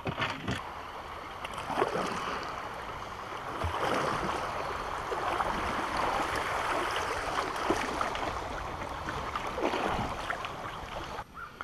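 Shallow river current rushing and rippling around a kayak as it runs a riffle, swelling about four seconds in, with a few light knocks.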